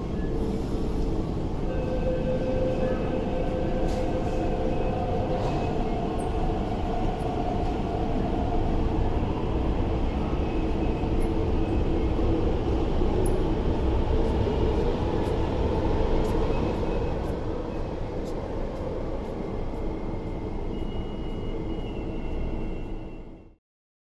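MTR West Rail Line electric multiple-unit train running alongside an underground platform: a steady rumble of wheels on rail, with the whine of the traction motors on top. It cuts off suddenly near the end.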